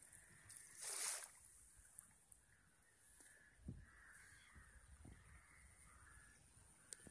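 Crows cawing faintly in the distance over quiet open-air ambience. About a second in there is a short, louder rush of noise, and a couple of soft low knocks follow later.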